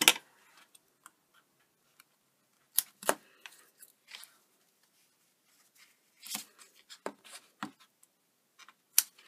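Hands working double-sided tape onto cardstock: scattered sharp clicks and short rustles as the tape is pulled off its roll and pressed along a card flap, with quiet gaps between. Near the end a single sharp snip as scissors cut the tape.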